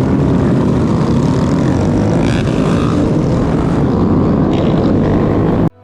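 A motorcycle on the move: a steady low rumble that cuts off suddenly just before the end.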